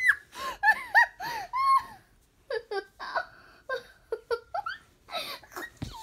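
Young girl giggling in short high bursts, with a brief pause about two seconds in before more giggles.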